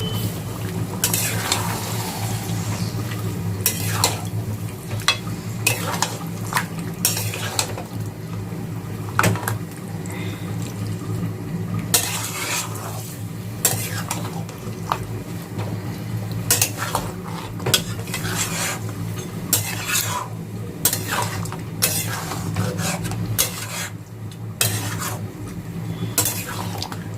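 Marinated mutton being stirred and fried in a kadai, a utensil scraping and knocking against the pan again and again at an irregular pace over a frying sizzle.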